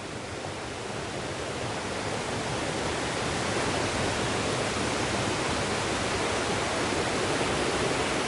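Steady rush of flowing water, an even hiss with no let-up, growing a little louder over the first couple of seconds and then holding.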